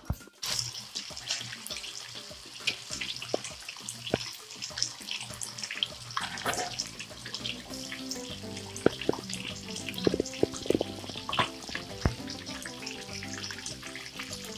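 Chicken skins deep-frying in hot oil: a steady sizzle with many scattered small pops and crackles.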